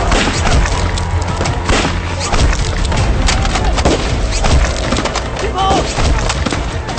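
Gunfire in a staged battle: a steady run of sharp shots and impacts over a low rumble, with shouting about six seconds in.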